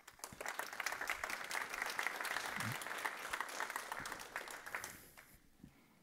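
Audience applauding, rising quickly and dying away about five seconds in.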